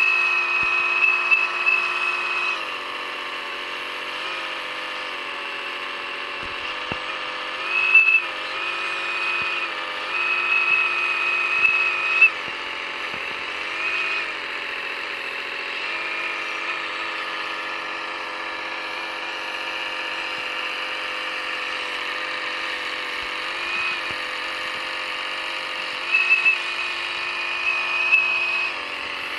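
Electric motors and gearing of a scale radio-controlled skid-steer loader whining steadily, swelling into louder, higher whines for a second or two at a time, several times over, as it drives and works its bucket.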